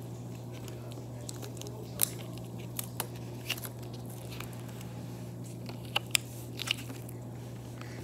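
Pink rubber balloon and rubber band being stretched, squished and tied off by hand, giving scattered sharp snaps and crackles over a steady low hum.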